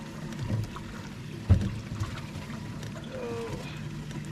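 Steady low hum of a bass boat's bow-mounted electric trolling motor, with a single sharp knock on the boat about a second and a half in.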